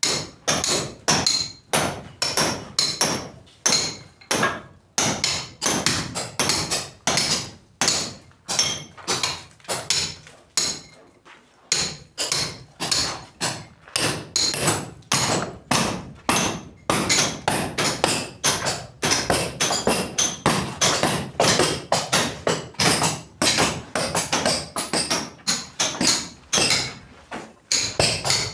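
Repeated hammer blows on a building job, struck steadily at about two or three a second, with a short pause partway through.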